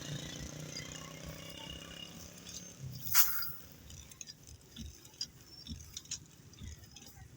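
An engine running steadily, which fades after about three seconds. One loud, sharp sound comes about three seconds in, followed by scattered faint clicks.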